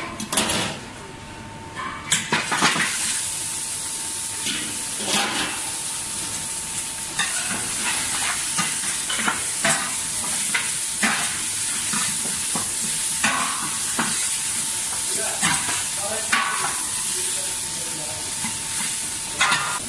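Raw lamb shank pieces sizzling as they hit a hot, dry stainless steel pan and sear in their own fat, with the sizzle starting about two seconds in. Metal tongs clack against the pan again and again as more pieces are laid in.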